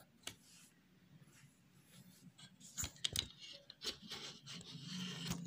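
Faint pencil scratching on a paper workbook page, then a few sharp knocks about three seconds in and a rustle of paper as the workbook is moved.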